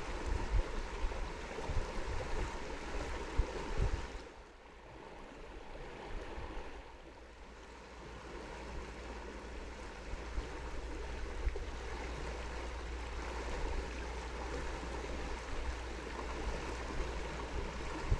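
Steady rush of flowing river water with a low rumble underneath and a few faint knocks in the first few seconds; it drops quieter for a few seconds early on, then returns.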